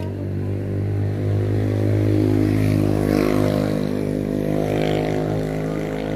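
A vehicle engine running with a steady hum, loudest about two seconds in, with a brief hiss around three seconds and again near five.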